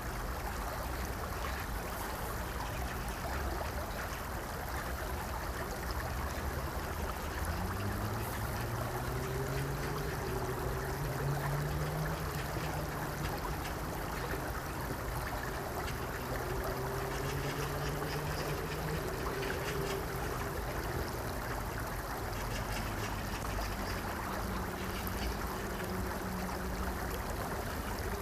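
Shallow stream rippling and trickling over rocky shallows in an even, steady wash. A low droning hum fades in about a quarter of the way through, rises slightly in pitch and fades after the middle, returning faintly near the end.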